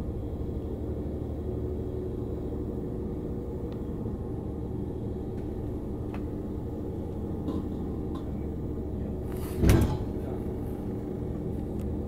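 Steady low mechanical hum around a train halted for its wheel (bogie) change, with one loud bang just under ten seconds in.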